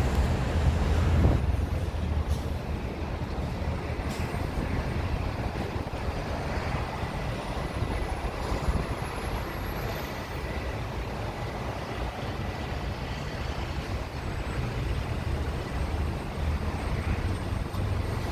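Steady airport jet noise: a low rumble and hiss, with a faint high turbine whine that rises over several seconds, starting about four seconds in.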